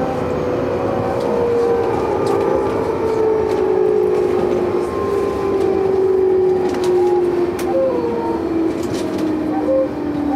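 Electric train running at low speed into a station, its traction motor whine falling steadily in pitch as it brakes, over running rumble with scattered clicks from the wheels on the track.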